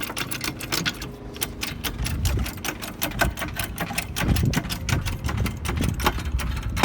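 Rapid, even mechanical clicking from a tool being worked on the car, roughly ten clicks a second like a ratchet, with heavier low knocks about two, four and six seconds in.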